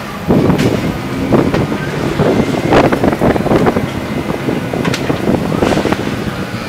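Hydraulic excavator demolishing a brick building: a steady engine rumble with several sudden crunches and knocks of debris, and wind buffeting the microphone.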